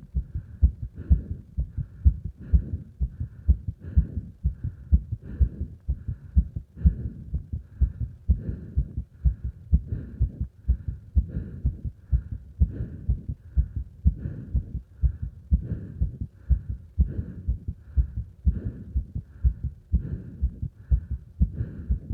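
A person's heartbeat during exercise, fast and regular at about two beats a second, with strong breath sounds swelling and fading underneath.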